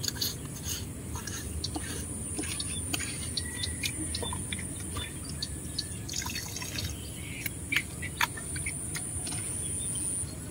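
Water dripping and trickling with scattered light clicks, as wet hands move in the bottom of a small boat. Behind it runs a faint steady high whine that stops near the end.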